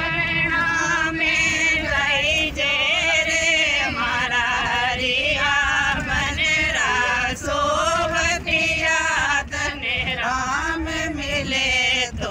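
A woman singing a devotional song, her voice wavering and sliding between notes in long phrases with short breaks between them.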